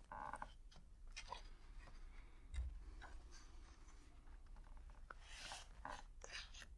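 Faint rustling and handling of paper pages, with scattered small clicks and one soft low thump about two and a half seconds in.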